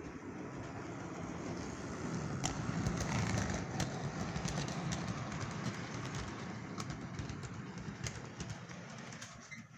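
Model train running along the layout track, a low rumble that swells as it passes close and fades near the end, with scattered clicks from the wheels over rail joints.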